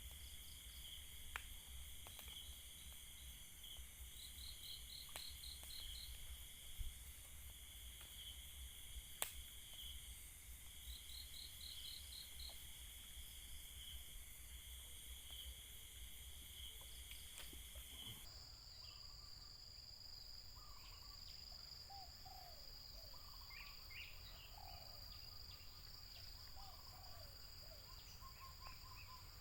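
Faint chorus of crickets and other night insects trilling steadily, some in pulsing bursts. About eighteen seconds in the chorus changes suddenly to a single higher steady trill with faint scattered chirps, and a few faint ticks are heard in the first half.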